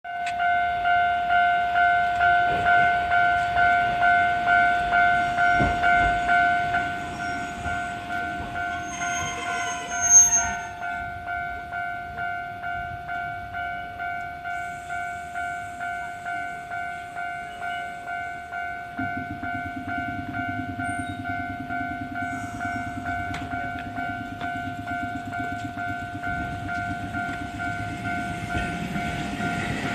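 Japanese level-crossing warning bell ringing its steady 'kan-kan' tone, repeating evenly and dropping in level about seven seconds in. A brief horn sounds around ten seconds in, and from about nineteen seconds a Hankai tram runs through the crossing with a low rumble under the bell.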